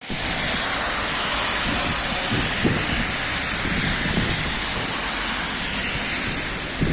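Steady rain falling in a continuous hiss, with low gusty rumble from wind on the microphone.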